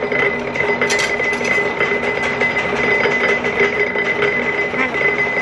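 Sheet-metal press in a workshop running with a steady motor hum and a high whine, with a brief clank about a second in.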